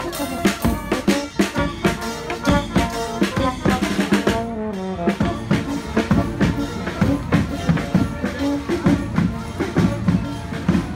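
Street brass band of trumpets, trombone and sousaphone playing over a steady beat of snare and bass drums. A note slides down in pitch about four seconds in.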